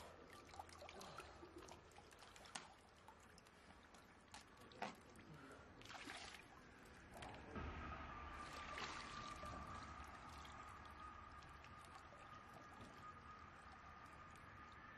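Faint water sloshing and dripping as someone wades in a shallow stream and lifts things out of the water, with scattered small splashes and clicks. A faint steady high tone joins a little past halfway.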